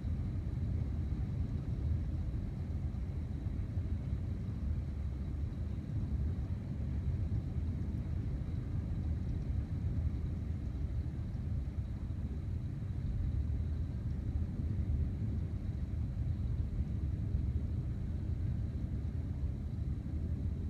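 Continuous thunder from a lightning storm: a constant low rumble like a freight train going by, with no separate claps.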